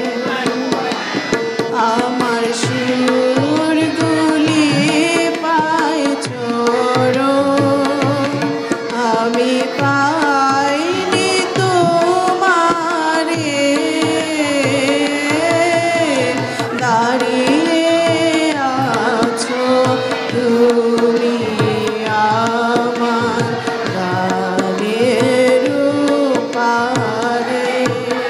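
A woman singing a Bengali song to her own harmonium accompaniment, with tabla keeping a steady rhythm under the wavering, ornamented vocal line.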